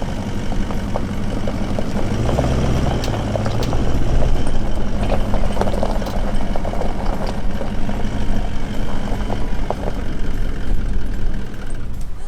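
Toyota Land Cruiser engine running as it slowly tows a caravan over river stones, the engine note picking up about two seconds in, with scattered crunches and clicks from the stones under the tyres.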